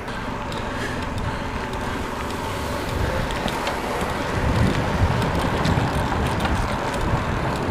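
Riding a bicycle in city traffic: a steady rush of road and wind noise with cars around, growing a little louder and lower-pitched about three seconds in.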